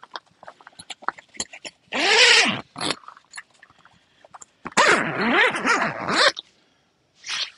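Dog whining in two bouts: a short rising-and-falling whine about two seconds in, then a longer run of wavering whines near the five-second mark, with small clicks and rustles between. The dog gets nervous whenever the camp gear is being moved around.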